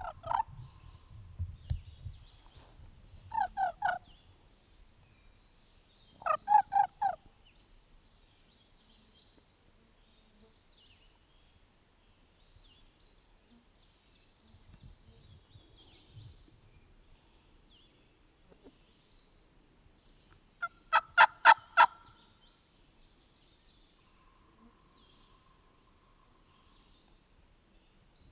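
Wild turkey jakes gobbling: three quick rattling gobbles, about 3 and 6 seconds in and a louder one about 21 seconds in. Small songbirds chirp faintly between them.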